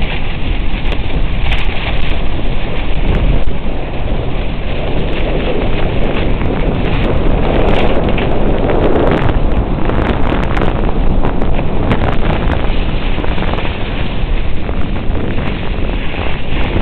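Loud wind buffeting the camera microphone as a cross-country skier glides downhill through snowy forest.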